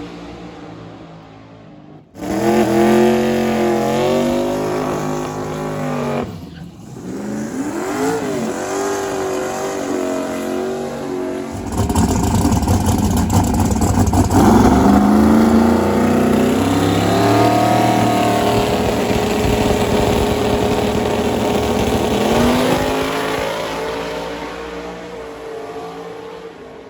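Drag race cars at full throttle making passes in several back-to-back clips, the engine note climbing through each gear and dropping at the shifts. The last run fades out near the end.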